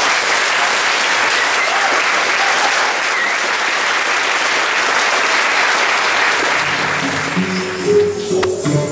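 Audience applauding, a dense steady clapping that fades out about seven seconds in as music starts.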